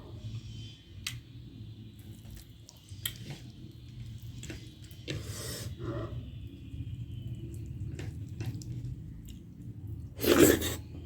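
Close-up eating sounds: chewing a meal of nettle soup with maize rice, with scattered small clicks and two louder bursts of mouth noise about five and ten seconds in.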